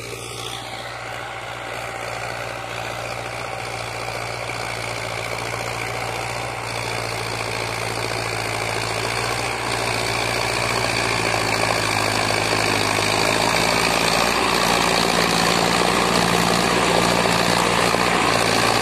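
ACE DI-6565 tractor's diesel engine running steadily under load while it drives a 2-metre rotavator through the soil, growing gradually louder as the tractor draws nearer.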